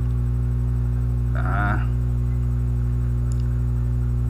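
Steady electrical hum with several low pitches, a mains hum in the recording that does not change. About a second and a half in, a short pitched sound rises over it briefly, and a faint click follows a little after three seconds.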